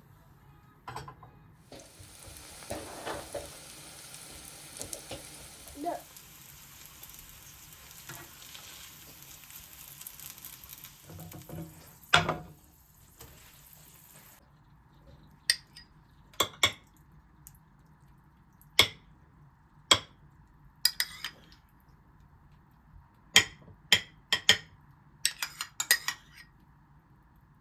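Food sizzling in oil in a frying pan, with a few knocks of a utensil against the pan, the loudest about twelve seconds in. The sizzle stops suddenly about halfway, and a dozen or so sharp clinks and taps of utensils on dishes follow.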